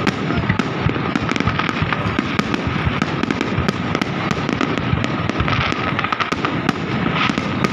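Fireworks display going off in a dense, continuous barrage: many bangs and crackles a second, with no pause.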